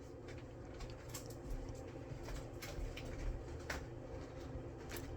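A few faint, sharp clicks and taps of small parts being handled, over a steady low hum.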